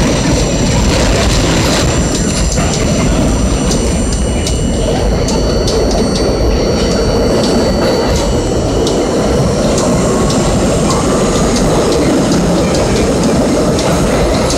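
R32 subway car running through a tunnel, heard from inside: a loud, steady rumble of wheels and running gear on the rails, with scattered clicks over rail joints and thin, high-pitched ringing tones from the wheels on the rails.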